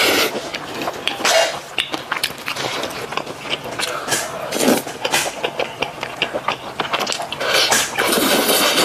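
Close-up mouth sounds of a person eating: slurping sticky, sauce-coated noodles and chewing with wet smacks, with several longer slurps near the middle and toward the end.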